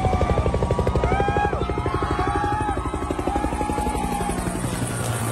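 Low-flying military helicopter passing overhead, its main rotor beating in a rapid, even chop that slowly fades as it moves away.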